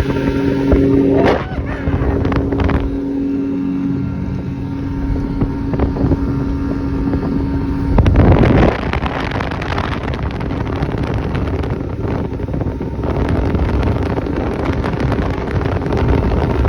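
Boat's outboard motor running under way, its steady hum plain through the first half, with wind buffeting the microphone throughout and loudest about eight seconds in.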